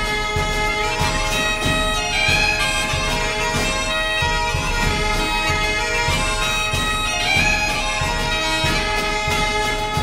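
Bagpipes playing a tune over a steady drone, with a drum beating underneath.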